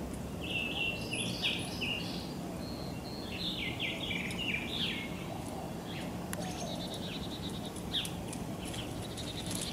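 A songbird chirping in two quick runs of short falling notes, over steady outdoor background noise.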